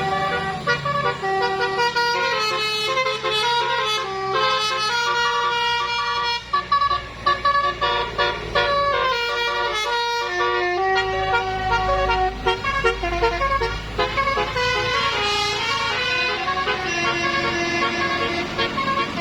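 Bus telolet horns, multi-tone air horns, playing melodic runs of notes that step up and down without a break, over the low rumble of bus engines. The engine rumble swells about two-thirds of the way through as a bus passes.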